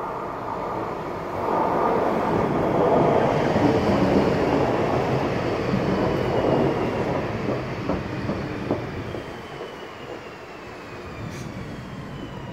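Electric multiple unit pulling into a station platform and braking: wheels rumbling on the rails, loudest as it runs past, then easing off as it slows, with a faint high whine that falls slowly in pitch.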